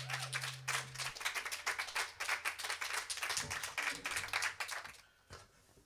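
Audience applauding after a song, a dense patter of hand claps that thins out and stops about five seconds in. The last low note of the acoustic guitar rings out under the first second of clapping.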